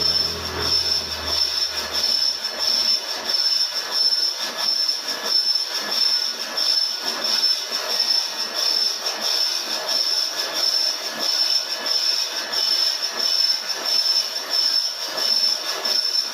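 Lathe tool cutting a stainless steel roller: a steady high-pitched squeal over the scraping of the cut, the loudness pulsing about twice a second. A low hum dies away in the first few seconds.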